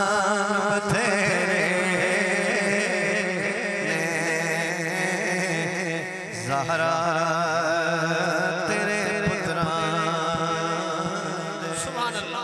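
A man singing long, wavering melismatic notes of a Punjabi devotional kalam (noha-style Muharram recitation), with a steady low drone underneath. The singing dips briefly about six seconds in, then resumes.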